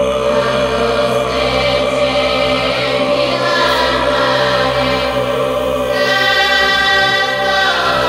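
Performance music with choir voices singing long held notes; a new, higher note comes in about six seconds in and slides down near the end.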